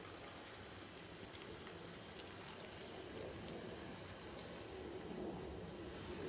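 Car moving slowly, a faint steady road and tyre noise with scattered light ticks, growing a little louder near the end.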